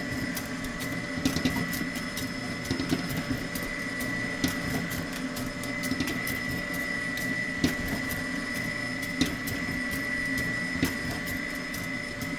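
Electric mixer running at low speed, a steady motor hum with a high whine, beating flour into creamed butter, sugar and eggs for cookie dough, with scattered light clicks.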